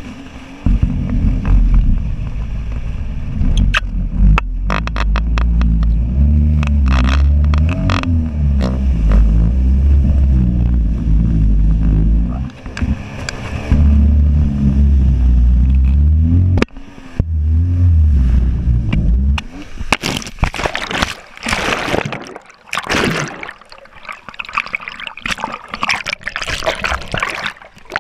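Jet ski engine running hard, its pitch rising and falling as the throttle changes, cutting out briefly about 17 s in and stopping a couple of seconds later. Then irregular water splashing and gurgling close to the camera, which goes underwater near the end.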